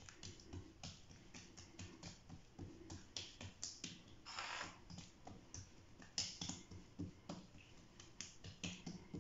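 Oiled msemen dough being pressed and stretched thin by hand on a granite countertop: faint, irregular sticky clicks and light taps, with a brief swish of the hand sliding over the dough about four seconds in.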